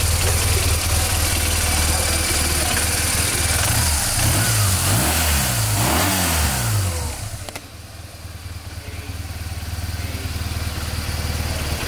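BMW R1200GS boxer twin running at idle, blipped up and down a few times about four to six seconds in. The sound dips sharply about seven seconds in and builds back over the next few seconds.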